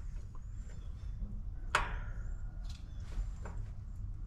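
Light clicks and knocks as gloved hands move wiring and copper lines inside an outdoor heat pump cabinet, with one sharper knock a little under two seconds in, over a low steady rumble.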